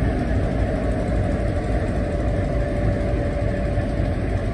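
Diesel locomotive engine running with a steady low drone as the locomotive creeps along the platform track, a faint steady whine above it.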